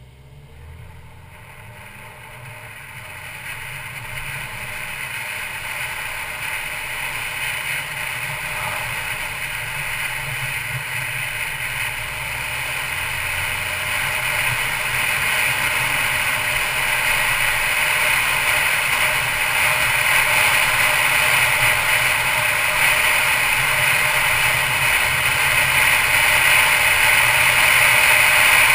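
2012 Mercedes-Benz C250 Coupe driving: a steady rush of road noise that grows gradually louder.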